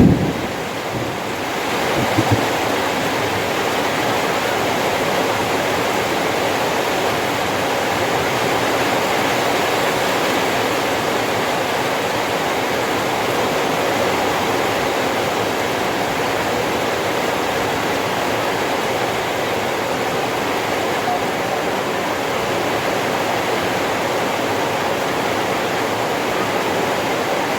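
Heavy rain falling steadily, with a couple of brief knocks about two seconds in.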